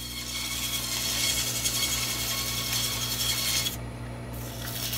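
Abrasive cloth held against a painted metal dial ring spinning in a South Bend Heavy 10 lathe: a steady hiss as the black paint is sanded back to bright metal, leaving the paint only in the stamped digits and engraved lines. The hiss stops briefly near the end as the strip lifts off, while the lathe keeps running with a steady hum.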